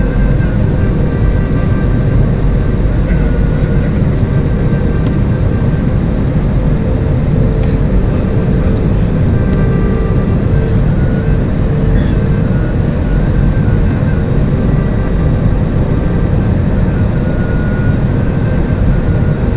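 Steady, loud rumble of an airliner's engines and rushing air heard inside the passenger cabin, with a faint steady hum over it. There are a couple of faint clicks about 8 and 12 seconds in.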